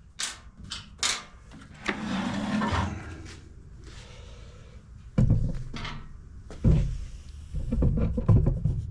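Clicks and knocks of small carburetor parts and tools being handled during reassembly, with a few dull thumps in the second half.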